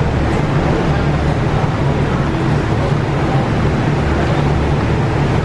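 Steady hum and rush of refrigeration fans in a walk-in cooler.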